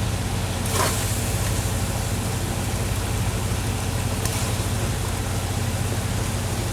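Chicken karahi cooking in the pan on the stove: a steady hiss with a constant low hum beneath it, and a short clink about a second in.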